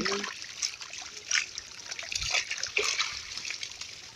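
A heap of small pond fish flapping and wriggling in shallow water on a net, making irregular short wet splashes and patters.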